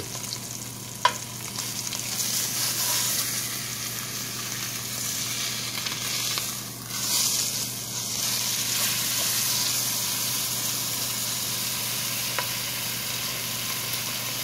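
Filet mignon sizzling in hot olive oil in a cast-iron Dutch oven as its second side sears after the flip. A sharp click comes about a second in, and the sizzling grows louder about two seconds in and then holds steady.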